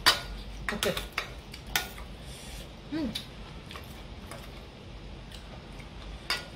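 Metal spoon and fork clinking and scraping against a stainless steel serving bowl in scattered sharp clicks, the loudest at the very start, as the last pieces of stir-fried bitter gourd are scooped out.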